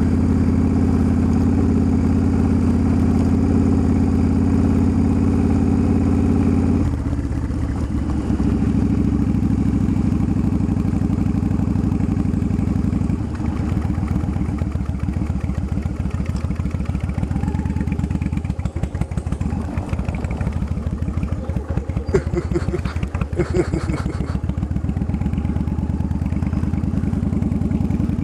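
A Yamaha cruiser's V-twin engine running as the motorcycle is ridden slowly, heard from the rider's seat. The engine note drops about seven seconds in and again around thirteen seconds, and a few clattering knocks come a little past twenty seconds.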